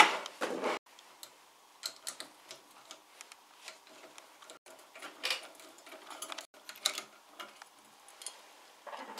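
Scattered light clicks and ticks of a hand tool working the small bolts of the rear cover on a Porsche 944 camshaft housing, after a brief louder burst of noise at the very start.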